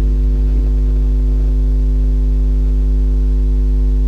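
Loud, steady electrical mains hum with a buzzy stack of overtones above it.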